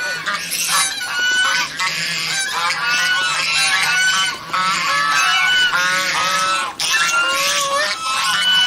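A flock of domestic swan geese honking continuously, many loud calls overlapping, some rising and falling in pitch.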